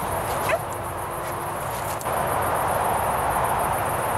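Garden ambience: a fast, even insect chirring high in pitch, typical of bush-crickets, over a steady rushing background noise that grows louder about two seconds in.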